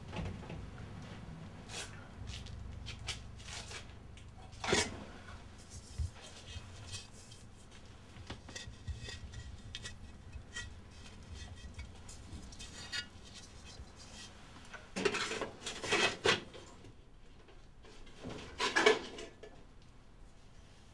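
Objects being picked up, moved and set down among shelves and crates: scattered clinks, knocks and rustles, with louder clatters about five seconds in, around fifteen to sixteen seconds, and near nineteen seconds.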